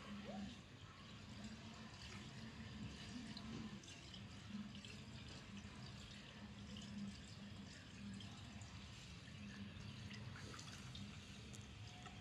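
Faint, gentle water sounds of a North American river otter swimming slowly at the surface: small drips and laps, with scattered little ticks over a low steady hum.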